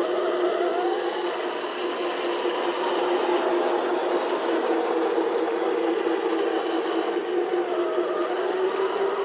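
Heng Long M1A2 Abrams RC tank running as it drives over dirt: a steady droning hum whose pitch rises and dips slightly.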